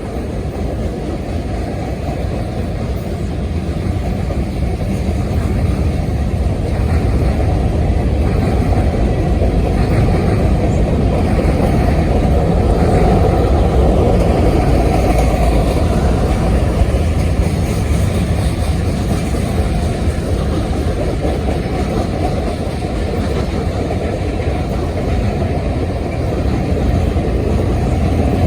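Freight train rolling by: a steady, loud, low rumble of wheels and cars on the rails, with no horn sounding.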